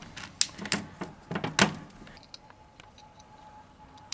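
A handful of sharp clicks and knocks in the first two seconds as a cordless drill is handled and laid down on a marble slab.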